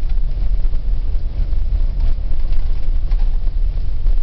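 Steady low engine and road rumble of a vehicle driving along, heard from inside the cab, with a few faint knocks and rattles.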